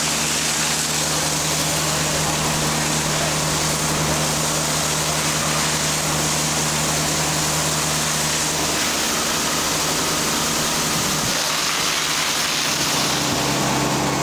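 A fire engine's pump drones steadily under a constant rush of water from hose streams. The drone's pitch changes about nine seconds in and drops lower near the end.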